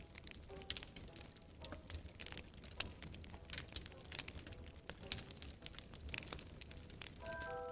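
Wood fire crackling and popping with irregular sharp snaps over a low rumble. Music notes come in near the end.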